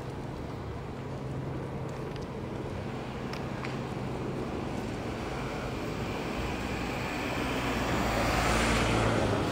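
City traffic noise with a steady low hum, and a vehicle approaching and passing close, growing louder to its loudest just before the end.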